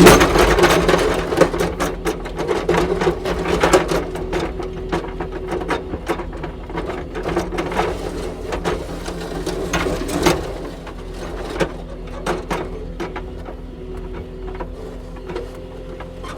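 Kubota SSV65 skid steer's diesel engine running at a steady speed, with a rapid, irregular clatter and knocking from the machine over it. The clatter is heaviest in the first few seconds, with a louder knock about ten seconds in.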